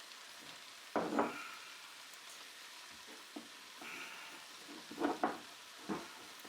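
Beef liver, onions and potatoes sizzling steadily in a frying pot, with a few short knocks about a second in and again near the end.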